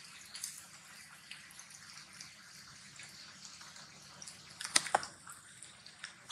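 Rainwater dripping after a shower: a soft hiss with scattered light ticks of falling drops, and two sharp clicks close together about five seconds in.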